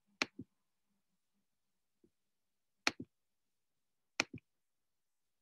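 Computer mouse clicked three times, a second or two apart, each a sharp click followed at once by a duller second click. The clicks come while a text is being looked up to read aloud.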